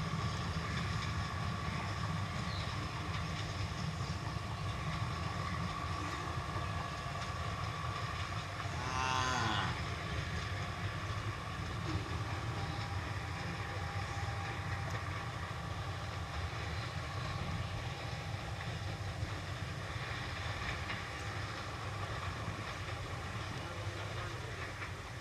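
Metre-gauge passenger train rolling away on the track, a steady low rumble. A short call with a bending pitch stands out briefly about nine seconds in.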